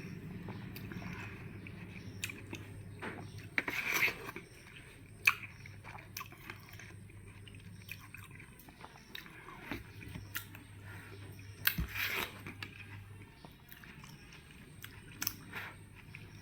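Close-up biting and chewing of watermelon: wet, crisp crunches at irregular intervals, the loudest about 4 s in and about 12 s in, over a low steady hum.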